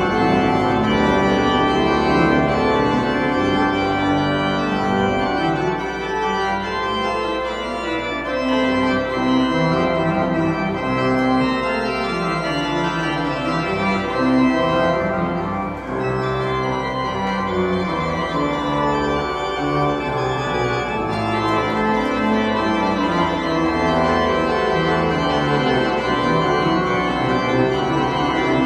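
Church organ playing sustained full chords that change from one to the next, with a short lull about fifteen seconds in.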